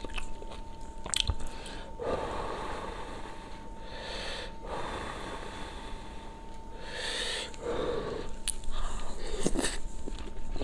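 A person eating spicy sujebi dumpling soup, chewing with loud sniffs and heavy breaths, and a few sharp clicks.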